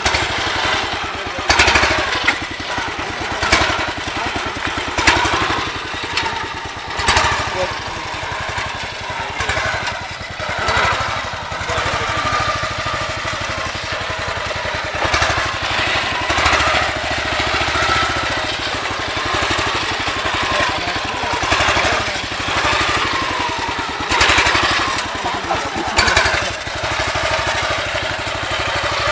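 A small ATV engine running and revving up and down over and over, with short sharp bursts of noise scattered throughout.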